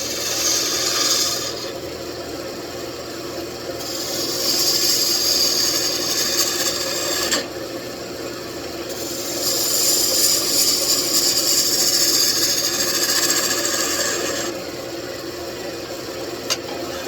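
Wood lathe running with a steady hum while the spinning wooden piece is worked in three long rasping passes, with a short click near the end.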